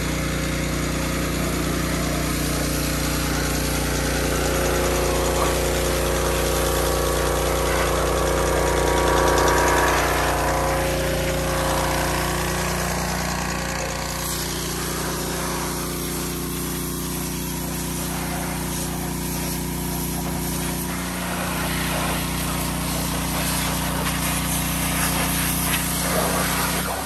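A machine running continuously, with a steady low hum under a noisy whine. Its pitch swells and sags once, about a third of the way in.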